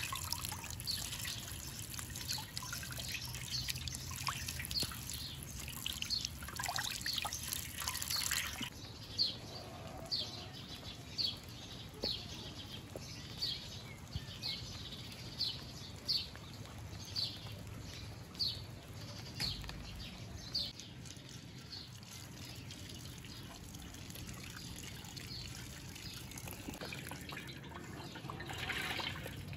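Water trickling for the first several seconds. Then comes a steady series of drips, about three every two seconds, which stop about two-thirds of the way through.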